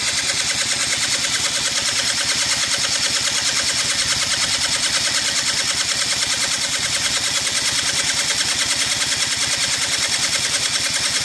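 Electric starter cranking a 1993 Yamaha Razz's small two-stroke engine in a steady, rapid chugging rhythm, with the engine not catching. It is a cold start with the choke cable seized, so the engine gets no choke.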